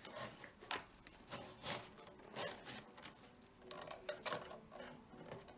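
Leather tabla strap (badhi) being pulled and threaded through the rings of the drum skin, a series of short, faint rubbing and scraping strokes at an uneven pace.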